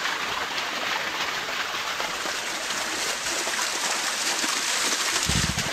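Small waterfall and stream: a steady rush of falling, splashing water, with a short low rumble near the end.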